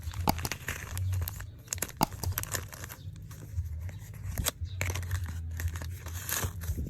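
Plastic packaging crinkling and being torn open by hand, with many sharp crackles over a low steady hum.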